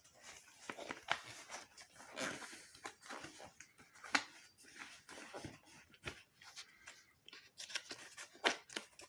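Handling noise from a Raketa 9A vacuum cleaner's dust bag and container being wrapped and fitted back into the body: irregular rustles with light clicks and knocks.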